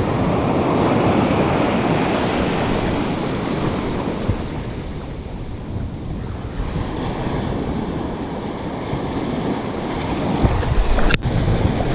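Surf washing onto the beach with wind buffeting the microphone; the wash swells and ebbs, a low wind rumble picks up near the end, and there is one sharp click just before the end.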